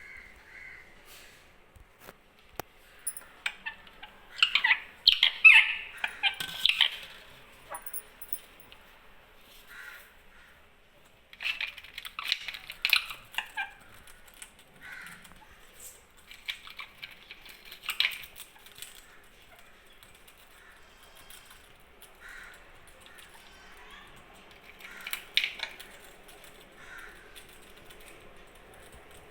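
Parrots calling in bursts of short squawks, the loudest about five seconds in, with more bursts around twelve and eighteen seconds and another near twenty-five seconds.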